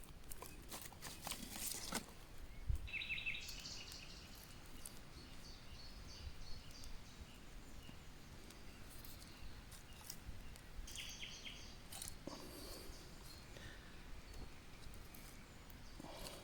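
Faint songbird calls: a quick run of short high chirps about three seconds in and another about eleven seconds in, over quiet outdoor background. A few sharp clicks come near the start.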